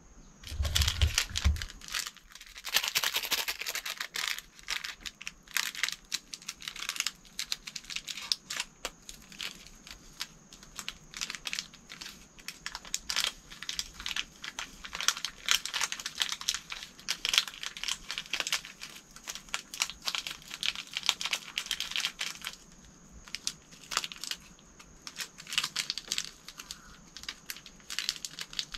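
Sapporo Ichiban shio ramen soup-base sachet being torn and crinkled between the fingers as its powder is shaken into the pot: a long run of dense crackling, loudest a few seconds in, with a dull bump about a second in.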